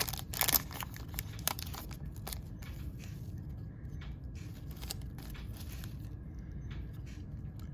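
Foil wrapper of a trading-card pack crinkling and tearing as it is opened, then fainter rustles as the cards are handled. The crinkling is loudest in the first second.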